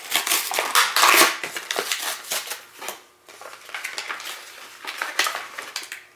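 Plastic packaging of a toy baby bottle set crinkling and crackling as it is handled and pulled open. The crackling is busiest in the first second or so, dips briefly around three seconds in, then picks up again.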